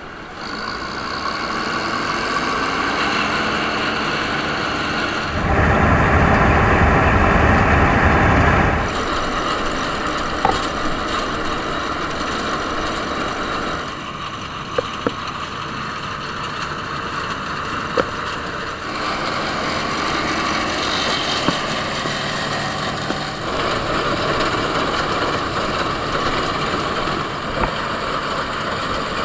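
Bizon Z056 combine harvester's diesel engine running steadily, heard in several clips at different distances, loudest with a deep rumble for about three seconds near a quarter of the way in. A few short clicks or knocks.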